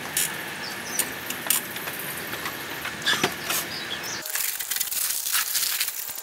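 Dry Quikrete concrete mix pouring from its paper bag into a steel wheelbarrow: a steady hiss that starts about four seconds in. Before it, scattered light clicks and taps against outdoor ambience.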